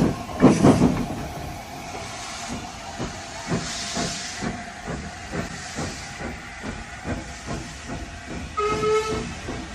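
Steam locomotive running: a steady chuffing beat of about two to three puffs a second with hissing steam, a loud puff about half a second in, and a short whistle toot near the end.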